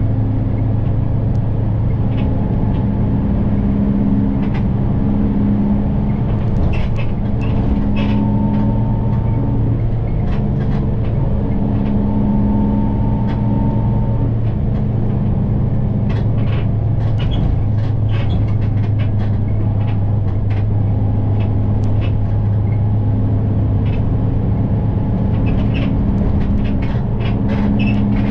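Cabin noise inside a moving city bus: a steady engine and road drone with a low hum, and light rattles and clicks now and then.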